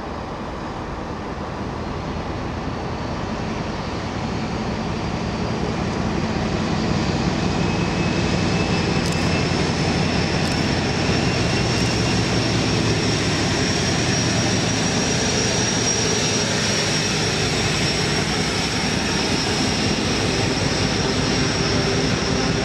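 Class 56 diesel-electric locomotive working under power as it approaches and passes, its engine growing steadily louder over the first several seconds and then running steadily, with a high whine above the diesel note.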